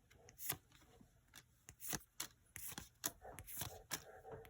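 Yu-Gi-Oh trading cards being flicked and slid through by hand: a faint, irregular run of short crisp snaps and quick card-on-card swishes.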